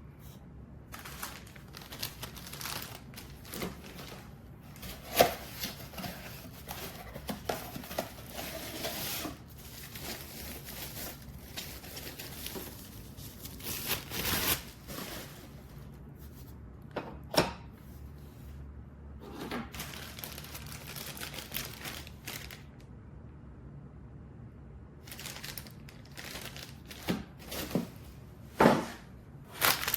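Intermittent crinkling and rustling with irregular sharp clicks and knocks, the sound of things being handled, over a steady low hum.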